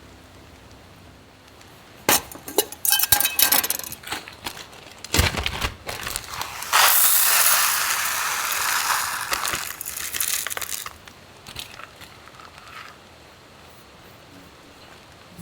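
Clinks and knocks of hard objects being handled, glass or metal, then a hiss lasting about four seconds that fades out.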